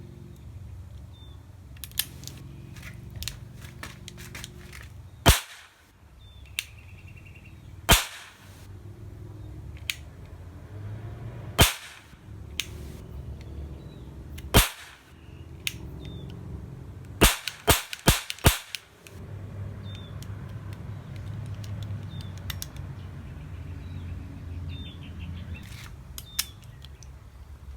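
Metal die-cast toy revolver cap gun firing an 8-shot ring of caps: sharp pops, the first four spaced a few seconds apart and the last four in quick succession, with lighter clicks between the shots.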